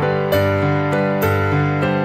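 Background music: gentle keyboard or electric piano notes over a steady repeating bass figure.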